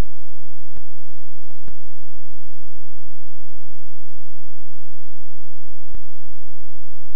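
Steady electrical mains hum with a stack of overtones and a fast low throbbing underneath, broken by a few faint clicks. It takes the place of the studio sound: the broadcast audio feed is carrying hum instead of the presenter's microphone.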